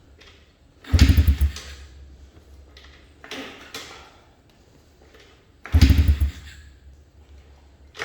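Dirt bike being kick-started without catching: three hard kicks, each a short clunk and brief turn-over of the engine lasting about half a second, with a lighter stroke between the first two. The engine does not fire and run, on a cold start with the choke on.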